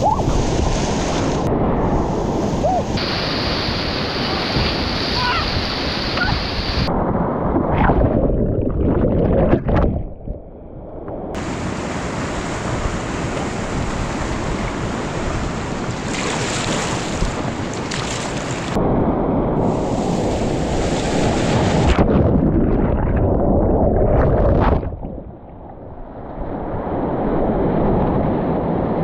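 Rushing whitewater churning and splashing around a kayak, heard close up with spray and wind buffeting the microphone. The roar changes abruptly several times and drops briefly about ten seconds in and again near 25 seconds.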